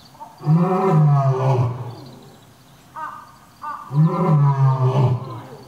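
Male lion roaring: two long, deep roars about three seconds apart, each lasting about a second and a half.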